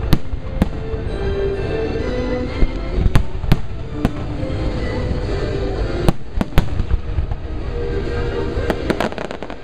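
Aerial fireworks shells bursting: about a dozen sharp bangs at irregular intervals, several in a quick cluster near the end, over music that plays throughout.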